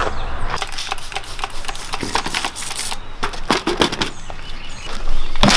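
Rapid, irregular clicks and knocks of hard objects being handled and struck.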